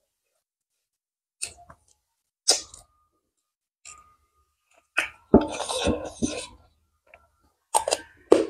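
Close-miked eating sounds: lip smacks, finger-sucking and chewing as soft rice and nettle greens are eaten by hand, in short separate bursts, with a longer, louder burst of mouth noise about five seconds in.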